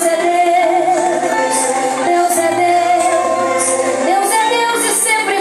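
A woman singing a slow worship song with musical accompaniment, holding long notes with vibrato.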